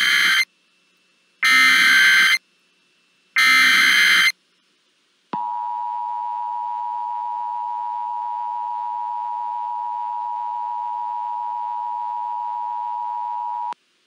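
Emergency Alert System tones: short digital data bursts of the SAME header, about a second each and a second apart, then about five seconds in the two-tone attention signal (853 and 960 Hz), held steady for about eight seconds before it cuts off.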